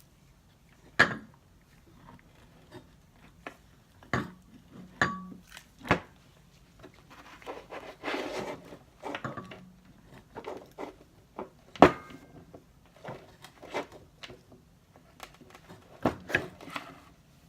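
Metal parts of a Smittybilt XRC8 winch gearbox being handled and fitted back together: scattered clinks and knocks, the sharpest about a second in and about twelve seconds in, with a brief metallic ring around five seconds and some scraping around eight seconds.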